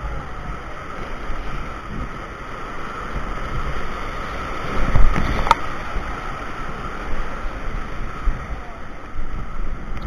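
Whitewater rapids rushing around a paddled raft, with low wind buffeting on the microphone and a loud thump about halfway through.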